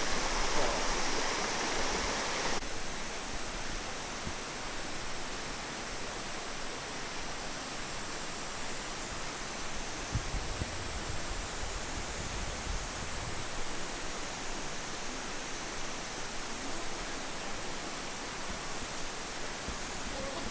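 Steady rush of flowing and falling water, a continuous noise with no distinct events; about two and a half seconds in it drops slightly in level and loses its highest hiss.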